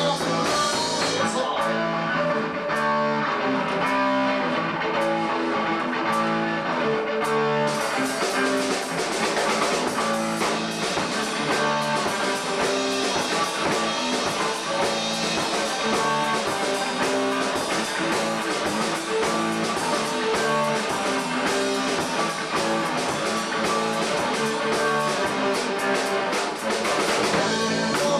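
Rock band playing live: electric guitar and bass over a Tama drum kit, an instrumental passage with no singing. The cymbals and drums grow busier about eight seconds in.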